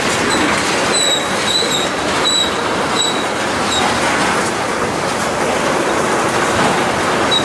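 Freight train of loaded tank cars rolling past, with the steady noise of steel wheels on rail. Short high-pitched wheel squeals repeat about twice a second through the first half, and once more near the end.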